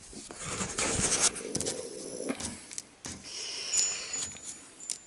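A large paper plan sheet rustling and crinkling as it is handled, with scattered small clicks and taps.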